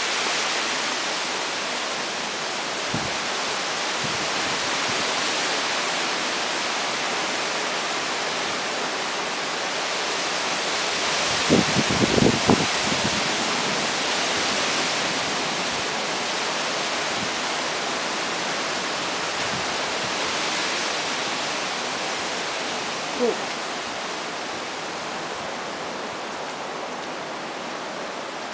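Steady rushing noise of a severe thunderstorm's wind and rain, a little louder in the middle and easing near the end.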